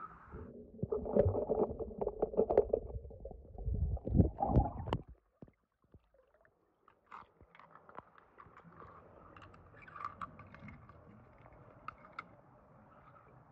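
Die-cast toy cars being handled and set down on a stone pool edge: scattered small clicks and scrapes. The first five seconds are louder, with a low, noisy rumble under the clicks.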